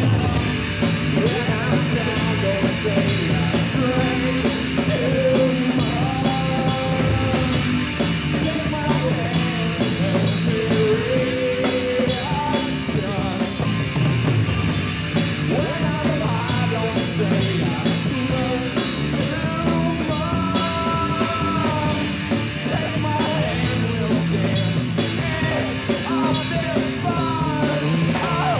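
Live rock band playing a rock piece, with held melodic notes over a steady beat.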